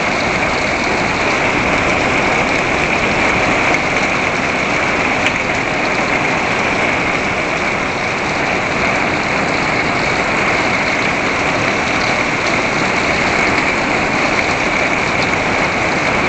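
Heavy rain pouring onto a wet wooden deck: a loud, steady hiss of drops.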